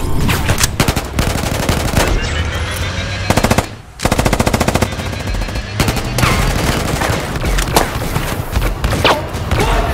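Automatic rifle fire in rapid bursts from several guns, as in a firefight. There is a brief break just before four seconds in, then a long fast burst.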